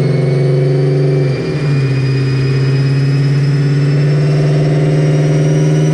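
Chrysler 300's 5.7 L Hemi V8, with long-tube headers and catless mid pipes, running under load on a chassis dyno. The note is loud and steady, dips briefly about a second and a half in like a gear change, then holds, while a faint whine slowly rises in pitch.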